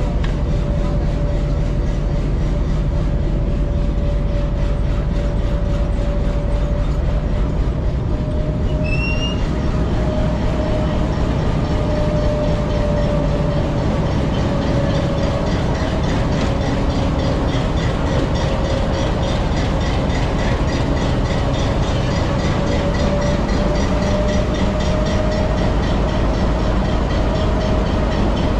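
HBU20 diesel-electric locomotive running, heard from inside its cab: a steady engine drone with a whine that drifts slightly in pitch. A brief high chirp sounds about nine seconds in.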